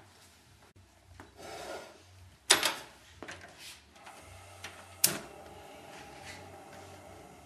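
A loud metal clatter on a gas stove, then a sharp click as the gas burner is lit under the saucepan, followed by the steady hiss of the gas flame.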